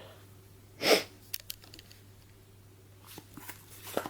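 Light handling noises: one brief rustle about a second in, then a few faint clicks.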